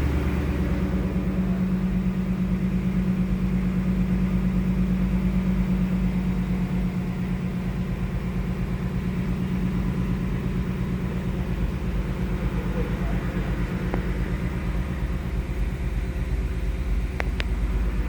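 2019 Ford Bullitt Mustang's 5.0-litre V8 idling steadily through its exhaust after a cold start, with an even, pulsing beat.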